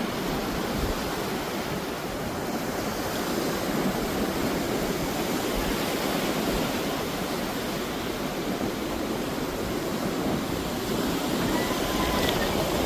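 Steady ocean surf washing in, mixed with wind on the microphone.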